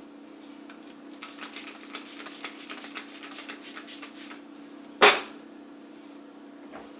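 A trigger spray bottle squirted many times in quick succession onto a greasy microwave part, then one loud knock about five seconds in, over a steady low hum.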